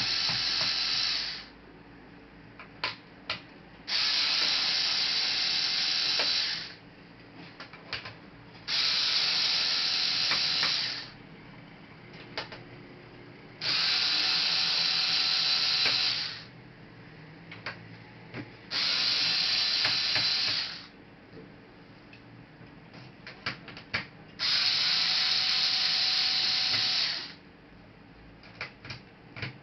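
Electric screwdriver whirring in repeated runs of two to three seconds, six times, while screws are backed out of the laptop casing, with small clicks of handling in the pauses between.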